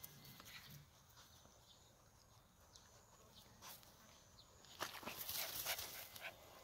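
Faint quiet yard ambience, then from about five seconds in a short run of scuffing, clicking footsteps on a dirt and gravel yard.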